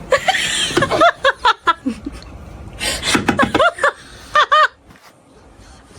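People laughing and letting out short high-pitched squeals in three bursts, about one, three and four and a half seconds in, a nervous reaction to a large spider.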